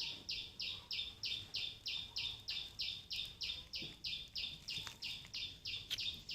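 High-pitched chirps repeating evenly, about three a second.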